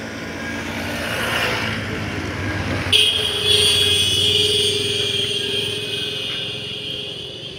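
Road traffic on a bridge: a car passes close by, its tyre and engine noise rising and falling over the first three seconds. About three seconds in, a steady high tone starts suddenly and holds before fading out near the end.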